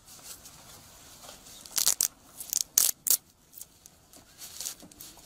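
Hook-and-loop wrist strap on a padded lacrosse glove being pulled open: several short, sharp rips about two to three seconds in, with softer rustling of the glove around them.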